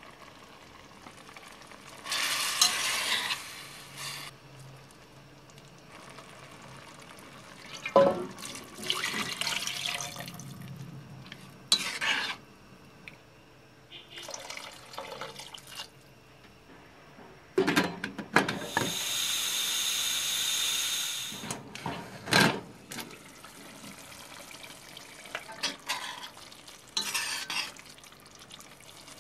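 Kitchen handling sounds at a stainless steel cooking pot: fried vegetables scraped in from a pan, a few metal knocks of a spoon on the pot, water poured in from a jug for a couple of seconds, and stirring.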